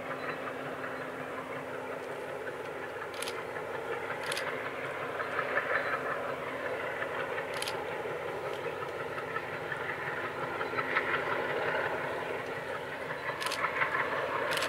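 Diesel engines of MLW locomotives hauling a freight train, heard from a distance as the train approaches: a steady engine hum that grows slightly louder, with a few sharp clicks.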